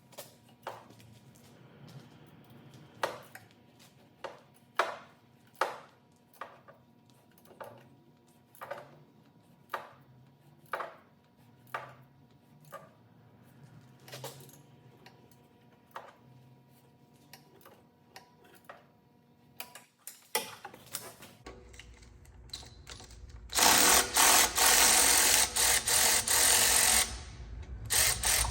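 Metal hand tools clicking and clinking on nuts, about one sharp click a second. Near the end a power tool runs loudly for about three seconds, the loudest sound here.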